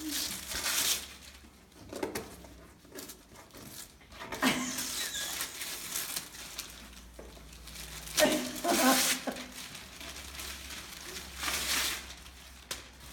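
Wrapping paper being torn off a gift box and paper and plastic crinkling, in short noisy bursts every few seconds.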